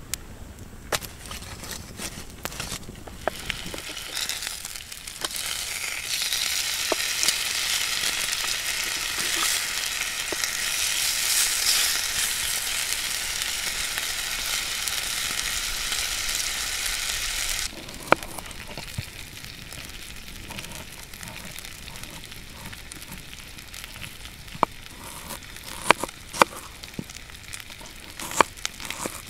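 Bacon sizzling in a skillet over campfire coals, a high hiss that builds over the first few seconds and then cuts off suddenly. After that come scattered sharp knocks of a knife slicing a peeled potato on a wooden board.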